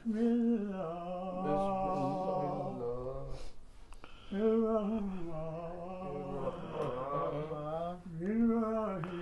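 A voice chanting in long, drawn-out melodic phrases, in the manner of religious recitation, with a pause about three seconds in and another near the end.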